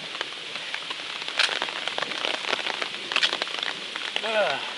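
Steady rain falling, with many separate drops striking close to the microphone. The loudest hits come about a second and a half in and about three seconds in. A short, low voice sound falls in pitch near the end.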